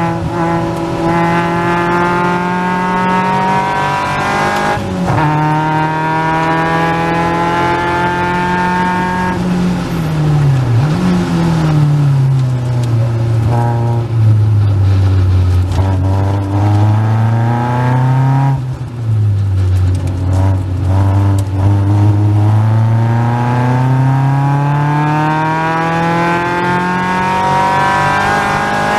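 Caterham Seven's 2.3-litre Ford Duratec four-cylinder engine at race pace, heard from the car. The revs climb with an upshift about five seconds in, then fall with a downshift about ten seconds in. They hold low through a slow section, drop again near nineteen seconds, then climb steadily under full acceleration.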